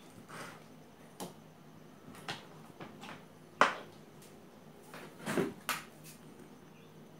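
Scattered light knocks and clicks of objects being handled on a work surface, about six in all over a faint steady hum. The sharpest and loudest comes about halfway through, and a short cluster follows near the end.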